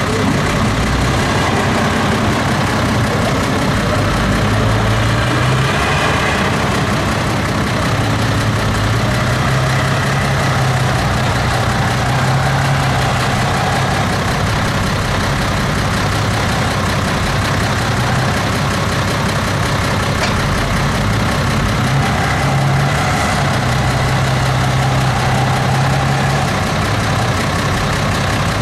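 Diesel engine of a Manitou telehandler running under load as it climbs and rakes grass on a silage clamp, its note rising and falling several times with the revs.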